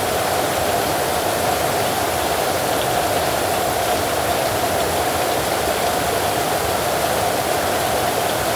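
Steady heavy rain, an even unbroken hiss with no thunder.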